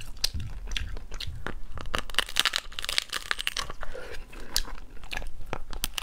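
Hard shell of a cooked slipper lobster cracking and crunching as it is pried apart by hand and bitten, a steady run of sharp cracks and crackles.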